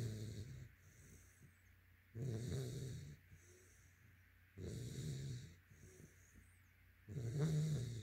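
Sleeping yellow Labrador retriever puppy snoring, with a rhythmic snore on every breath. There are four snores about two and a half seconds apart, with softer breaths between them.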